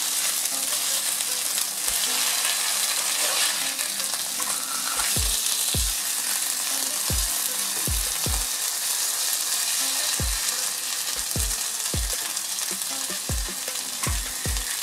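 Fish pieces sizzling in a little oil on a flat tawa griddle, with about a dozen irregular soft knocks as the pieces are turned over with steel tongs and a wooden spatula.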